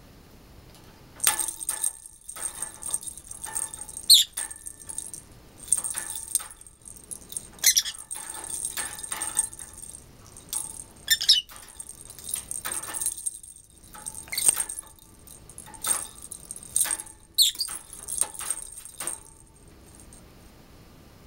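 A small bell inside a hanging plastic lattice ball toy jingles and rattles in irregular bursts as a peach-faced lovebird bites and shakes it. A few short, sharp falling squeaks are mixed in.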